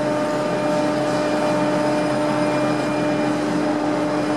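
Slipway winch hauling a Tamar-class lifeboat up into the boathouse on its wire: a steady mechanical hum with a low, held whine.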